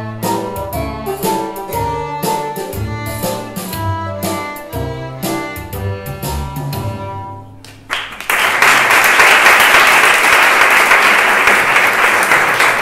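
A viola plays a simple tune over piano accompaniment, its last notes dying away about seven seconds in. About eight seconds in, audience applause breaks out, louder than the music, and keeps going.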